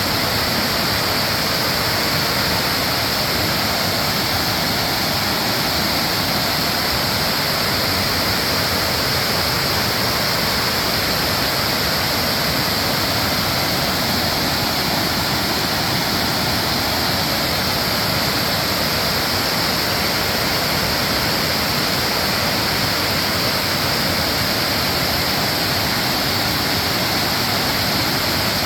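Waterfall on the Patapsco River at Daniels: water pouring over the falls in a steady, even rush of white noise that never changes.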